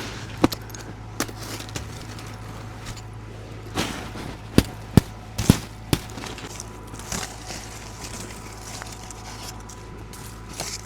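Sharp cracks and crunches in rock-hard crusted snow, a handful clustered in the middle, over a steady low hum.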